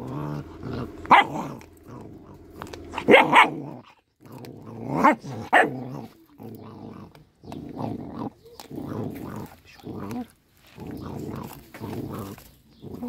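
Small dog growling in repeated rough bursts while eating fish, with a few sharper, louder barks in the first half.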